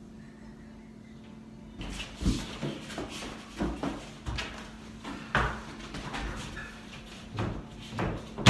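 Irregular knocks, thuds and scraping as a sheet of drywall is pushed and slid into place against a ceiling. It starts about two seconds in after a quiet moment.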